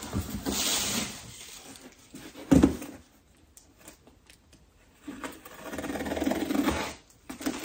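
Cardboard rustling and sliding as a box is lifted out of a larger shipping box, then one loud thump as it is set down on a wooden table about two and a half seconds in. Near the end comes a steady scraping as the packing tape along the top of the box is cut open.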